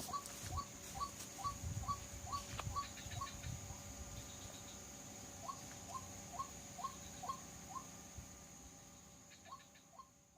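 White-breasted waterhen calling: a monotonous series of short repeated notes, about two to three a second, in runs broken by a pause of about two seconds, over a steady high whine.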